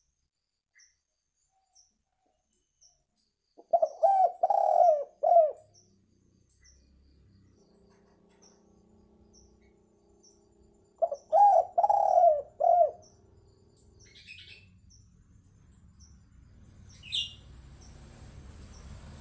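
Spotted dove (tekukur) cooing: two short phrases of three to four coo notes, about seven seconds apart.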